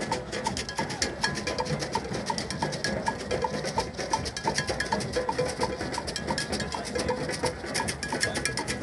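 Drum circle: many hand drums playing a fast, dense rhythm, with a bell-like metal note struck about twice a second.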